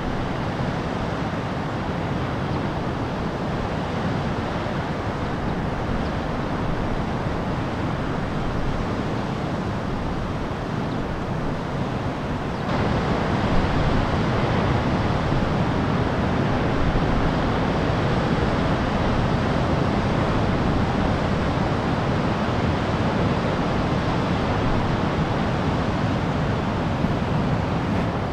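Steady rush of heavy ocean surf breaking, with some wind noise on the microphone. It gets louder about thirteen seconds in.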